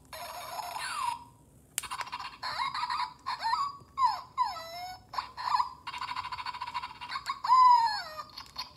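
Zhu Zhu Puppies toy puppy playing electronic dog sounds through its small speaker while its head is pressed: a string of short synthetic yips and whimpers that slide up and down in pitch. There is a short pause about a second in, ended by a click, and the loudest whine, falling in pitch, comes near the end.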